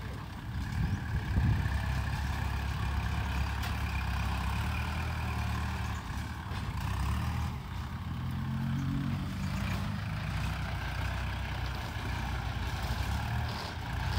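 Diesel farm tractor engine running under load as it pushes and levels loose soil with its front blade. The engine sound is steady and low, and a clearer pitched engine drone comes in about eight seconds in.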